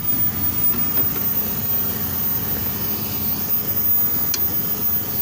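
Steady running-machinery noise with a constant low hum and rumble, and a faint tick about four seconds in.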